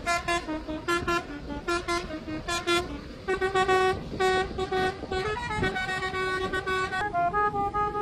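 Telolet horn, a multi-tone musical horn, playing a tune: a run of short, quick notes, then from about three seconds in, longer held notes that step in pitch, over low traffic rumble.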